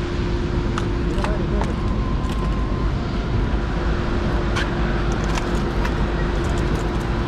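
Boat motor running at a steady speed: an even low hum with one steady tone through it, and a few light clicks.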